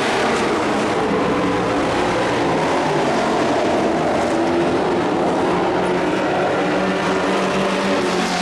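Dirt-track race truck engines running hard at racing speed: a steady, loud engine drone whose pitch wavers up and down.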